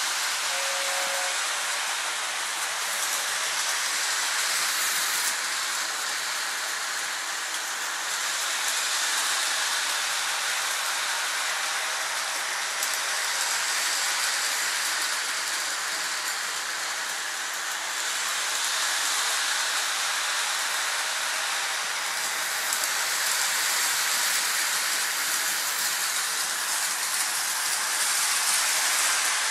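Lionel electric toy train running on its track: a steady hissing rush that swells and fades every four to five seconds, with a short two-tone toot about half a second in.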